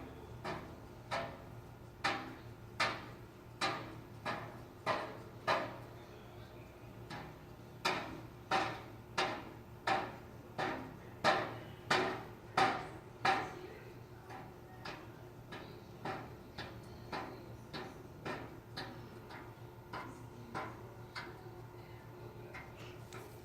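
Construction pounding: a steady series of sharp, ringing impacts, about three every two seconds, louder through the middle and fainter toward the end.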